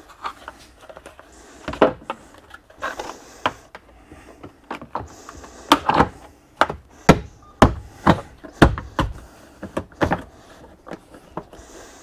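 Plastic rear cargo-sill trim panel being pressed back onto the body by hand: a string of about a dozen sharp snaps and knocks as its clips seat, closer together and louder in the second half.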